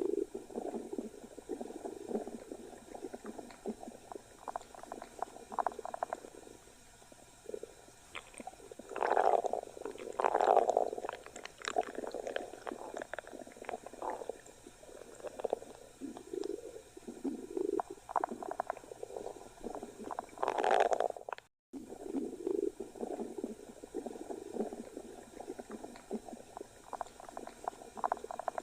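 Stomach growling: irregular gurgling rumbles and bubbly pops, louder around nine to eleven seconds in and again just before twenty-one seconds, with an instant's dead silence at about twenty-one and a half seconds.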